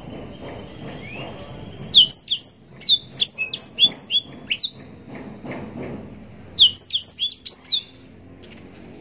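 Blackthroat (black-throated canary) singing: quick strings of high, sharp, down-slurred whistled notes, one burst about two seconds in and another near the end, over low background noise.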